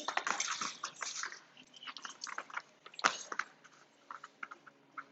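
A dog crunching and chewing a treat: irregular crackly clicks, densest in the first second and a half, with one sharp, louder click about three seconds in.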